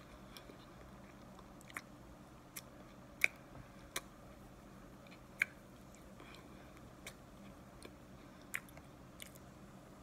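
Close-up chewing of a mouthful of cornstarch, with sharp little crunches or clicks at irregular intervals, about one a second.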